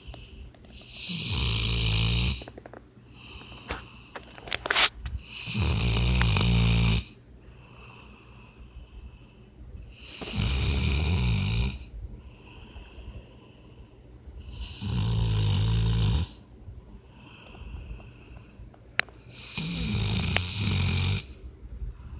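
A puppy snoring in its sleep, snoring like a person: five loud snores about four and a half seconds apart, each lasting about a second and a half, with softer breaths between them.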